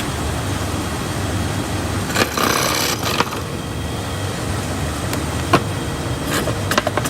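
Folding-box adhesive-tape applying machine running with a steady low hum. About two seconds in comes a brief hissing rush, and sharp clicks follow later, most of them near the end, as pieces are fed through.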